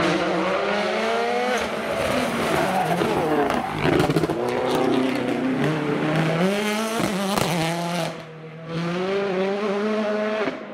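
Ford Fiesta rally car's turbocharged four-cylinder engine at full throttle, the revs climbing and dropping with several quick gear changes. About eight seconds in the engine goes briefly quieter on a lift-off, then picks up again as the car accelerates away.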